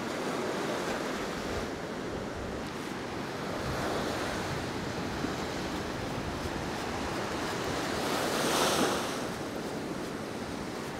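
Sea surf washing in steadily, with wind buffeting the microphone; a louder wave swells and breaks about eight seconds in.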